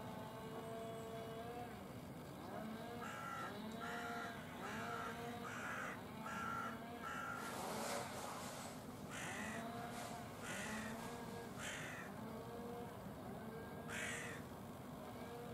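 A crow cawing repeatedly: a quick run of about six caws a few seconds in, then louder, harsher caws about a second apart, with a last one near the end. Lower, repeated arching tones sound underneath throughout.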